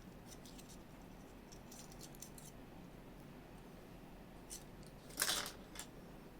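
Faint handling of small drone accessories in plastic packaging: a few light clicks, then a short rustle about five seconds in.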